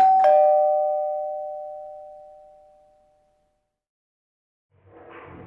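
Two-note ding-dong doorbell chime: a higher note, then a lower one a moment later, both ringing out and fading over about three seconds. A faint rising noise comes in near the end.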